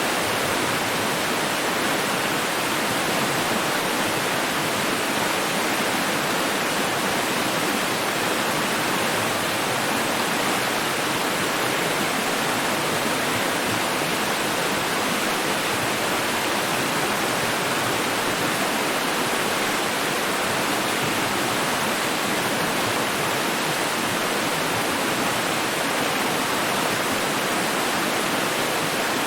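Running water rushing steadily, a constant even hiss with no breaks or changes.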